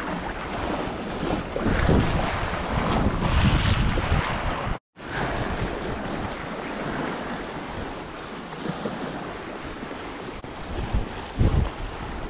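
Lake waves washing and splashing against icy shoreline rocks, with wind buffeting the microphone. The sound cuts out for an instant about five seconds in.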